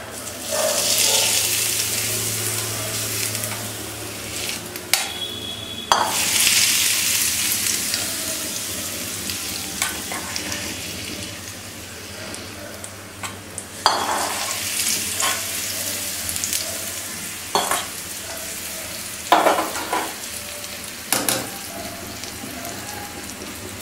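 Hot tempering oil with mustard seeds, dal, dried red chillies and curry leaves scraped from a small steel kadai onto wet ground ivy gourd chutney, sizzling in three waves that flare up and fade. A metal spoon clinks and scrapes against the pan and bowl several times.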